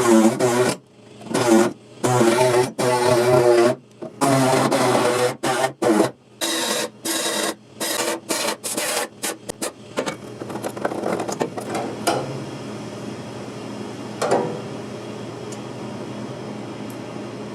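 A small electric power tool run in many short, stop-start bursts, its pitch wavering under load, then settling into a steadier lower hum for the last several seconds.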